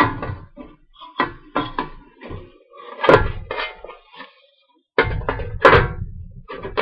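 A large metal lid lifted off a pan of cooking chicken stir fry and set back down, with a run of metal clanks and knocks as it and a cooking spoon strike the pan; the heaviest clatter comes about five seconds in.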